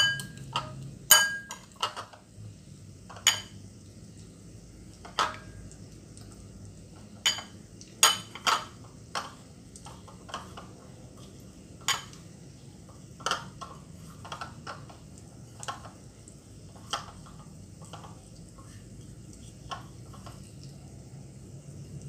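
Irregular sharp clinks and clicks of a knife, a ceramic plate and bowls being handled, some with a short ring; they come thick in the first nine seconds or so and then grow sparser and fainter.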